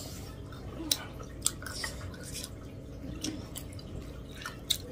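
Close-up wet eating sounds: chewing and lip smacks as curry is eaten by hand, heard as a string of sharp, irregular clicks over a steady low hum.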